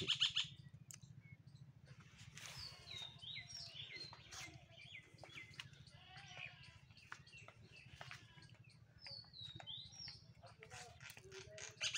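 Small birds chirping faintly, short rising and falling calls that come in a flurry a few seconds in and again near the end.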